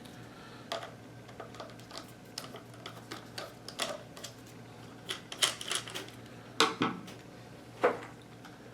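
Irregular small clicks and taps of a screwdriver backing out the takedown screw under a Ruger 10/22 rifle's stock, with a few louder knocks in the second half as the rifle is handled.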